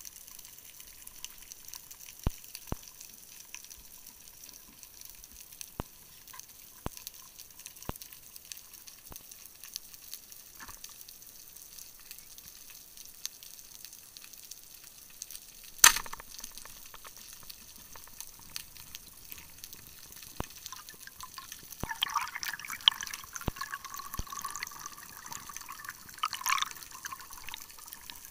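Underwater sound heard through a diver's camera housing: a faint steady hiss with scattered small clicks, one loud sharp crack about halfway through, and a rush of bubbling noise over the last several seconds.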